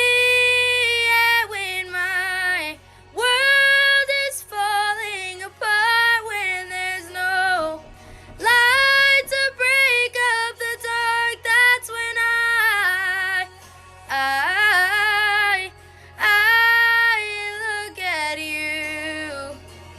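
A high female voice singing in phrases with short pauses between them, the held notes wavering with vibrato and little or no accompaniment under them.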